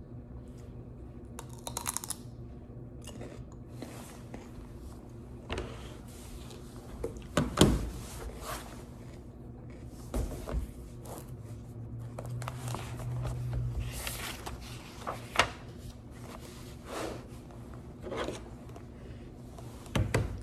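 Crunchy bites and chewing of a raw green vegetable stick, mixed with rustling as fabric is handled close to the microphone, in short irregular strokes over a low steady hum.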